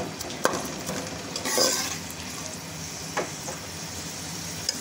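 Sliced onions sizzling in hot ghee in a metal pot, stirred with a metal spoon that clicks and scrapes against the pot a few times.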